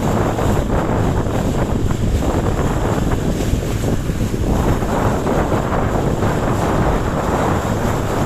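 Strong wind buffeting the microphone, with the steady rush of water against a small sailing dinghy.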